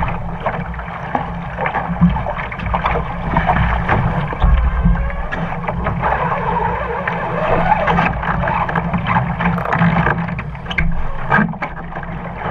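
Water splashing and gurgling against the hull of a small RS Aero sailing dinghy under way, with many small slaps and a steady low rumble underneath.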